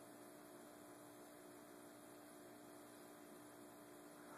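Near silence: room tone with a faint steady hum and hiss.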